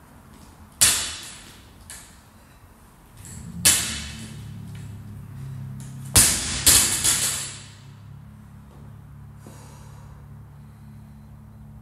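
Loaded 85 lb barbell with bumper plates dropped onto the gym floor after snatches: three heavy thuds, about a second in, near four seconds and just after six seconds, the last one bouncing and rattling several times before it settles.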